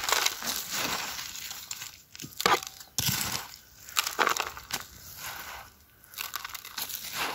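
Loose gravel and rock chips crunching and rattling as a bare hand scrapes them aside, in irregular strokes with short pauses, while digging out a metal detector target.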